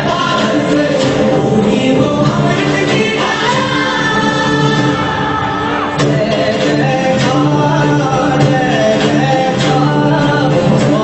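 A Hindi prayer song: group singing over instrumental backing with percussion strikes.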